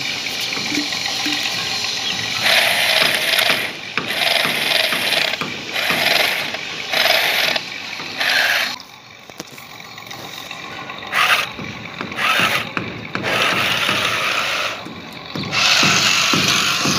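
A toy excavator's small electric motor and plastic gears whirring and grinding in a string of short bursts, a second or so each, starting and stopping, with a quieter pause midway.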